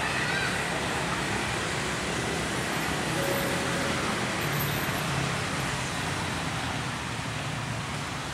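Steady road traffic at a crowded level crossing: motorcycle and small-vehicle engines running and idling together in a continuous wash of noise.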